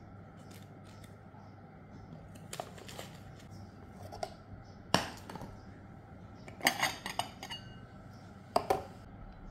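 Ceramic bowl of butter knocking and clinking against a plastic kitchen scale and the table as it is handled, lifted off and set down: a series of sharp knocks, the loudest about halfway, some with a brief ring.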